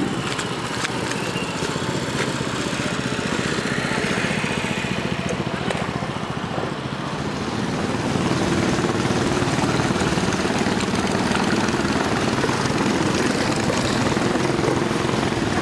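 Small motorboat engine running, a steady buzzing drone that grows a little louder about halfway through.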